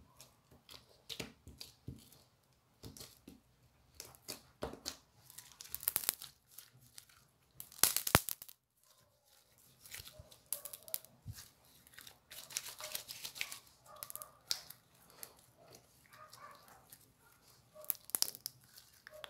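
Hand-kneaded slime being squeezed, stretched and pressed, giving a stream of sticky, irregular crackling and popping clicks. The loudest burst of crackles comes about 8 seconds in.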